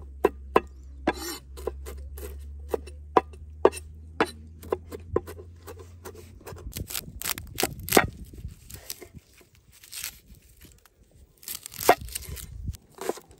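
Large kitchen knife chopping fresh leafy herbs on a wooden cutting board: sharp knocks of the blade on the board, about two a second at first, then more irregular. Near the end, the knife cuts into an onion on the same board.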